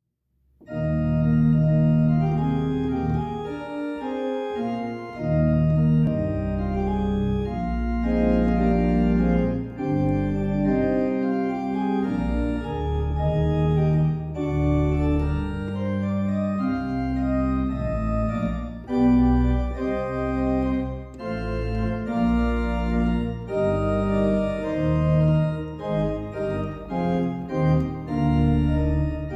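Two-manual organ playing a festive recessional postlude in full, sustained chords over a deep bass, the chords changing every second or so. The music starts about half a second in.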